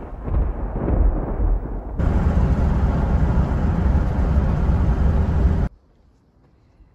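A deep rumble that fades over the first two seconds, then from about two seconds in the steady loud rumble of road and wind noise from a car driving on a paved road, which cuts off suddenly near the end.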